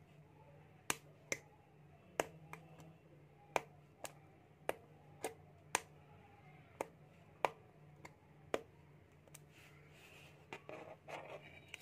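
A homemade capacitor-discharge spot welder firing through copper electrodes onto a thin metal strip. About a dozen sharp snaps come at irregular intervals of roughly half a second, each one a capacitor bank dumping its charge in a weld spark. Softer handling noise follows near the end.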